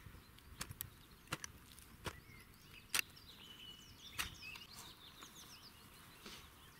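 A hand hoe's metal blade chopping into loose garden soil, about six sharp, irregular strikes, the loudest about three seconds in. Birds chirp in the background.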